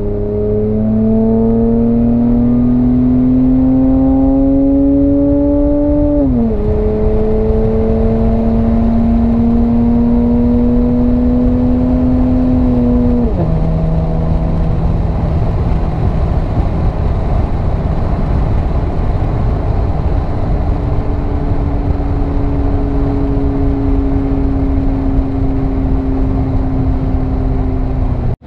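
Straight-piped 2008 Acura TL Type S's 3.5-litre V6, heard from inside the cabin while driving. The exhaust note climbs under acceleration, drops at an upshift about six seconds in, climbs again and drops at a second upshift around thirteen seconds, then settles into a steady drone at cruise.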